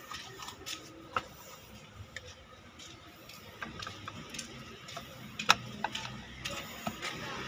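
Plastic hose-adapter cap being fitted onto a plastic water bottle by hand: scattered light clicks and taps of plastic on plastic, the sharpest about five and a half seconds in.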